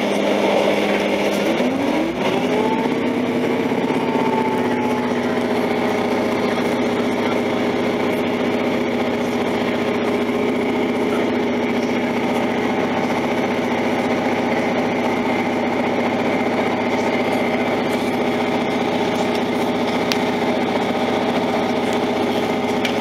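Diesel multiple unit's engine and transmission heard from inside the passenger carriage. It rises in pitch about two seconds in, then holds a steady drone as the train runs.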